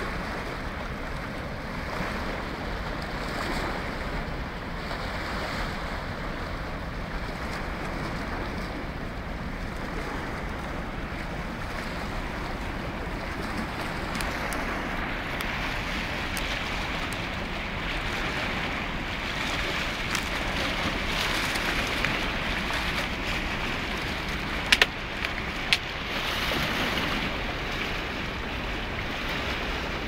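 Steady wind rushing over the microphone with the wash of choppy river water beneath it, and a few sharp clicks about 25 seconds in.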